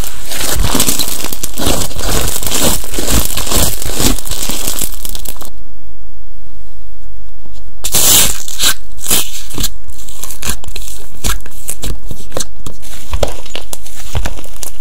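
Crunchy slime being squished and stretched by hand, giving dense, fast crackling and crinkling. The crackling stops for about two seconds near the middle, then starts again.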